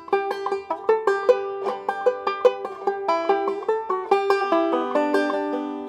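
Five-string banjo played clawhammer style in open G (gDGBD) tuning: a quick backup lick of little two-finger chord shapes worked up the neck with drop thumb. A steady run of picked notes, with the last notes near the end left to ring and fade.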